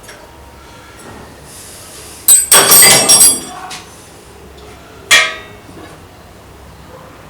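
Metal striking metal while parts of a homemade air compressor are forced into place: a quick run of loud, ringing clanks a little over two seconds in, then one more clank about five seconds in.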